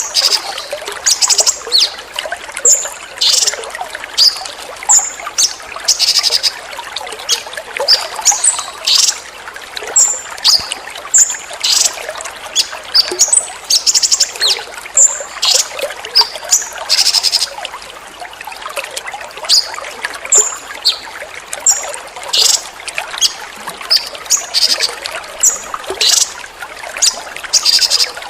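Water trickling steadily, with a songbird's short, sharp high-pitched calls and whistles repeating about once or twice a second: a songbird 'tembakan' call over running water.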